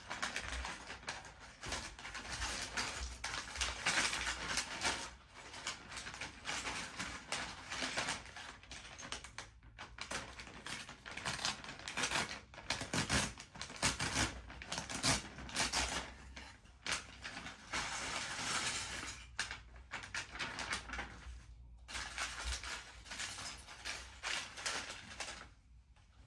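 Rustling plastic packaging and small LEGO pieces clattering as they are handled, in irregular bursts with short pauses.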